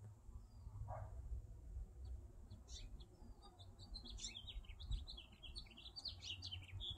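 Small songbird twittering faintly: a rapid run of high chirps in the second half, over a low rumble.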